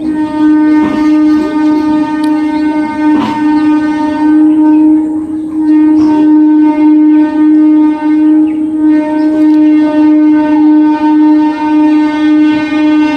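Indian Railways train horn sounding one long, unbroken blast: a single low note with many overtones, held at a steady pitch with a slight waver in loudness. A few faint clicks sound under it.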